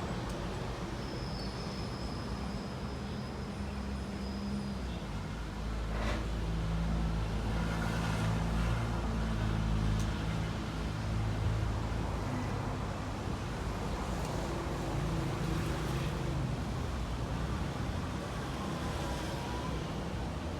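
A motor vehicle's engine running nearby over a low traffic hum, growing louder from about six seconds in and easing off again after about twelve seconds.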